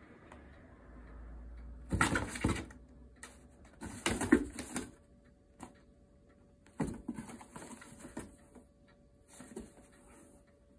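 Corrugated cardboard box rustling and scraping as a kitten paws at it, pushes it and climbs inside, in four short bursts.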